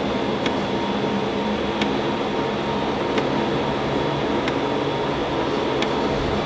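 The PowerBook 520C's floppy drive running while it writes to a disk: a steady whirring hum with a sharp click about every second and a half as the head steps.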